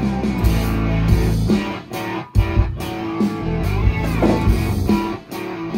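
Music with guitar over a low bass line and regular drum hits.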